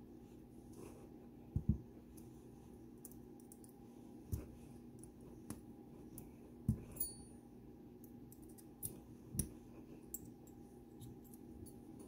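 Small metal tool clicking and scraping against the retaining clip of a Dom Sigma lock cylinder as it is pried at to take the lock apart. Scattered sharp metal clicks every second or two, the loudest a quick double click about one and a half seconds in.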